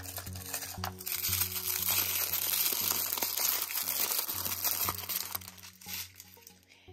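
Tissue-paper wrapper crinkling and rustling as it is unwrapped by hand from a small toy accessory, from about a second in until near the end.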